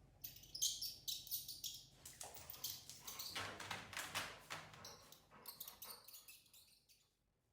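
Mouse squeaking sound effect: rapid, high-pitched squeaks in quick clusters, stopping near the end.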